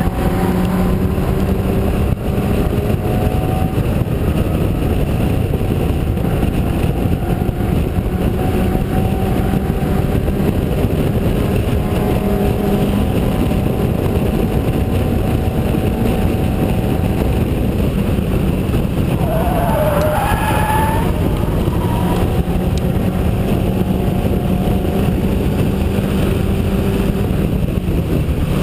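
Onboard sound of a Locost club race car's engine held at high revs while racing, with the pitch shifting a little as it goes through the gears and corners. A brief wavering higher note cuts in about two-thirds of the way through.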